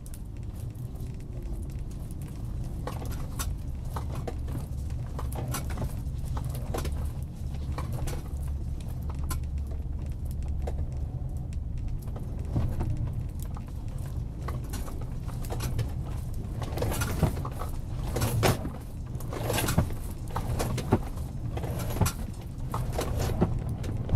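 Car making a right U-turn: a steady low drone of engine and road with irregular clicks and knocks, more frequent and louder in the last several seconds. The clicking is the abnormal noise the car makes when turning right.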